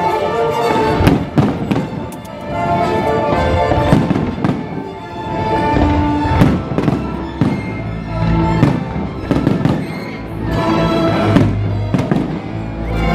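Display fireworks going off: a continual run of sharp bangs and crackles, the loudest about a second in, about four seconds in, near the middle and near the end, over orchestral music.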